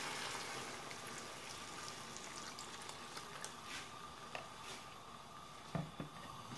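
Thin, freshly watered-down fish curry boiling in a pot over a full gas flame: a steady hiss with scattered small pops of bubbles bursting. Two soft knocks come close together near the end.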